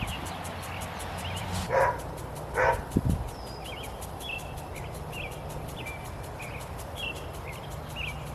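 A dog barks twice, about a second apart, in the first few seconds.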